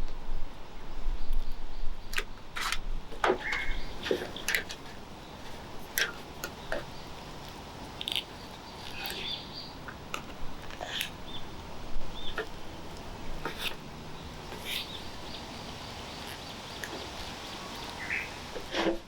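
Birds chirping, with many scattered sharp clicks and knocks throughout and a low rumble in the first few seconds.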